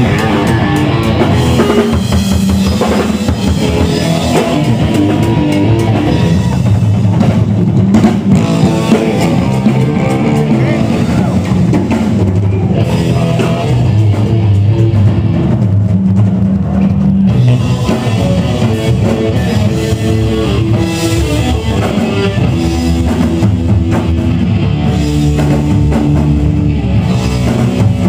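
Live rock band playing loud: a drum kit pounding along with electric guitar.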